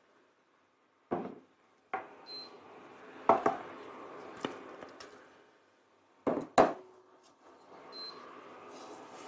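Kitchen utensils knocking and clinking against a glass mixing bowl of thin pancake batter as it is whisked and ladled out: several separate sharp knocks, with two close together about two-thirds of the way in.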